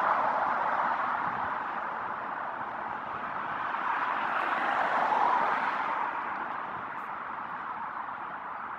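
Airbus A380-861's four Engine Alliance GP7200 turbofans on final approach, a steady rushing jet noise that swells a little about five seconds in and then eases.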